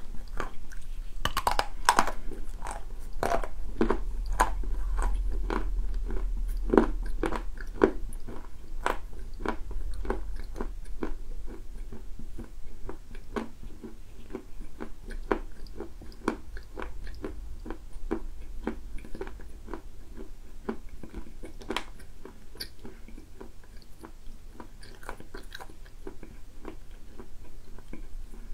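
Biting and chewing a dry, hard plate of edible clay, heard close up as many sharp crunches. The crunching is densest and loudest in the first half and becomes softer and sparser toward the end.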